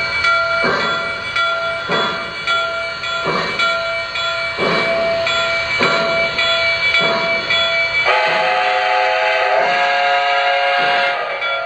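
Lionel O-gauge model of New York Central Hudson 5344 running slowly, its onboard sound system giving steam chuffs about every second and a half over a steady whine. About eight seconds in, it sounds a chime whistle of several tones together, held for about three seconds.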